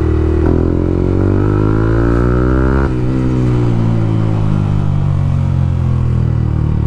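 Motorcycle engine under way, revving up in pitch for about two and a half seconds, then dropping suddenly about three seconds in and easing down to a steady lower note.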